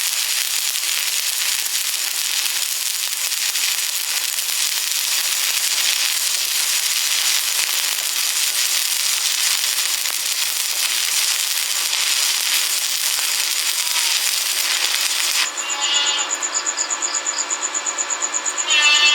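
Stick welding arc crackling and sizzling steadily. About three and a half seconds before the end it cuts off suddenly and gives way to a steady high-pitched whine with a fast, regular pulse.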